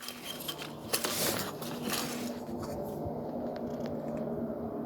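A steady low hum, a few pitches held together, switches on suddenly and keeps going, with clicks and rustling handling noise over the first couple of seconds.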